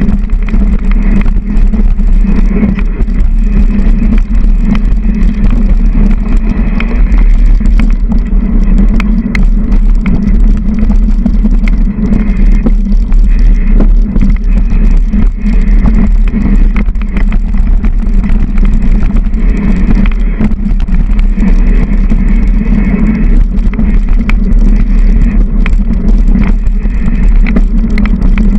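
Mountain bike riding fast down a rough dirt trail, heard through an onboard action camera: a constant rumble of tyres and frame vibration with frequent sharp rattles and knocks from bumps.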